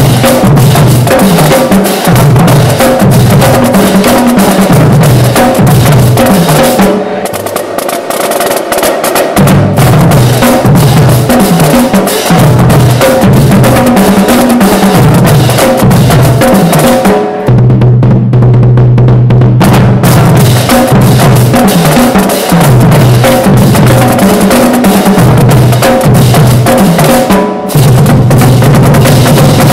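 Marching drumline of snare drums, tenor drums and tuned bass drums playing loud, fast rhythmic patterns with rolls. The bass drums drop out about seven seconds in and come back near ten seconds; around eighteen seconds in the bass drums roll together for about two seconds while the snares stop.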